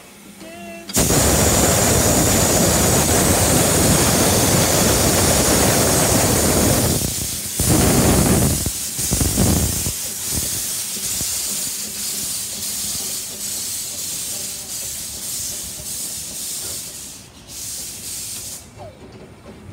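Narrow-gauge steam locomotive 'Thomas Wicksteed' venting steam: a loud hiss starts suddenly about a second in and runs for about six seconds, then a few strong bursts follow. The locomotive puffs steadily as it pulls away, the puffs fading and stopping near the end.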